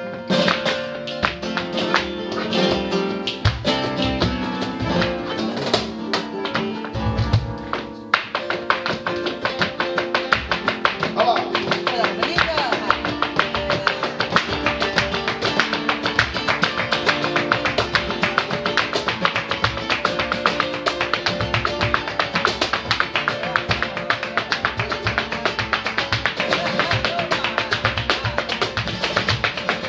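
Live flamenco por soleá: two Spanish guitars playing with cajón, hand claps and a dancer's heel-and-toe footwork on the wooden stage. From about eight seconds in, the rhythm fills out into a fast, even run of taps.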